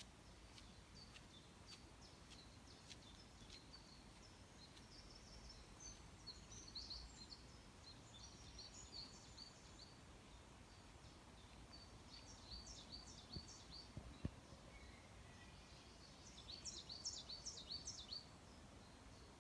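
Faint forest birdsong: bouts of quick, high chirping phrases come and go three times over a quiet background hum, with scattered light ticks early on. A single brief knock sounds a little past the middle.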